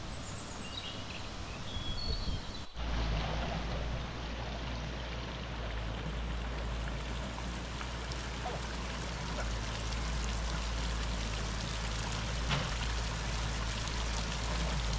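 A few short bird chirps in the first second, then, after an abrupt change about three seconds in, a steady rush of running water, like a stream.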